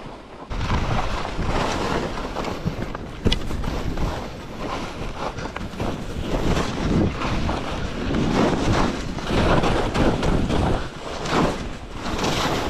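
Wind buffeting an action camera's microphone as a skier runs downhill, with the skis hissing and scraping over the snow in swells that rise and ease through the turns. A sharp knock about three seconds in.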